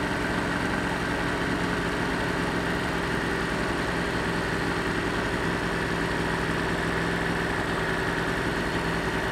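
Yamaha superbike's inline-four engine running at a steady, unchanging pitch, heard from on board the bike.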